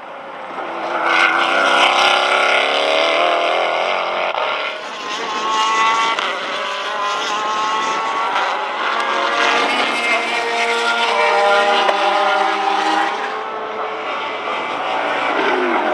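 GT1 and GT2 race cars' engines running hard as the cars pass, the engine note rising and falling in pitch several times over a steady rush of noise.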